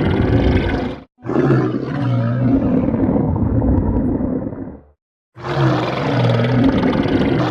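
Stomach growling: a loud, continuous low rumbling gurgle. It breaks off twice, very briefly about a second in and for about half a second near five seconds in. The stretch between the two breaks sounds duller toward its end.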